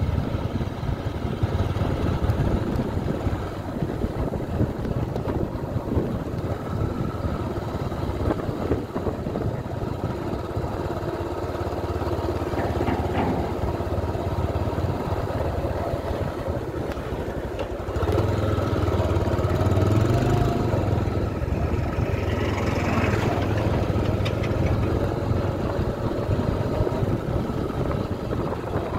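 A vehicle engine running with a steady rumble and road noise, growing louder about 18 seconds in.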